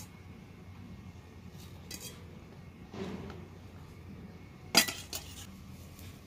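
Metal spoon clinking against a stainless wire mesh strainer as fried tofu is spooned out. There are a few light clinks, and the loudest, ringing clink comes a little under five seconds in, with a softer one right after.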